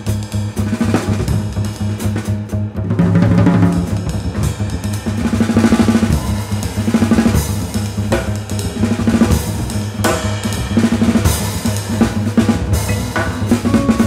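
A jazz trio playing. The drum kit leads with busy snare, bass drum and cymbal strokes over plucked double bass notes. Ringing vibraphone notes come in near the end.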